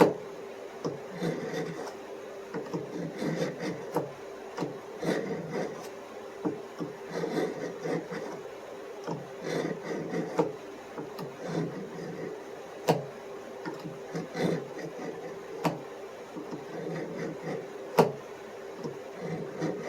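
Knife blade being drawn again and again across the coarse side of a sharpener, a scraping stroke about once a second, with a few sharp clicks between strokes.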